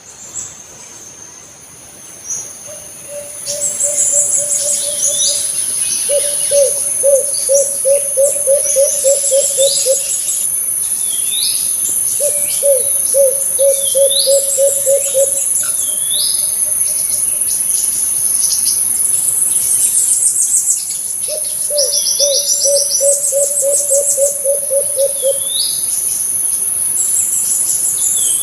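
Alimukon dove cooing in rapid pulsed trains, four phrases of about three to four seconds each. Repeated high chirps of other birds and a steady high insect whine run behind them.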